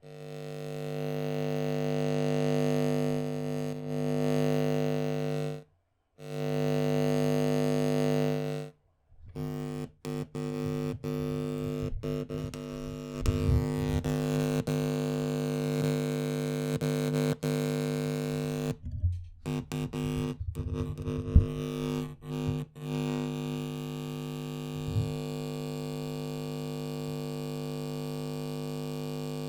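Malfunctioning loudspeaker buzzing with a steady electrical hum. It cuts out completely several times and, over the second half, stutters with many brief dropouts and crackles before settling into a steadier, slightly quieter buzz near the end.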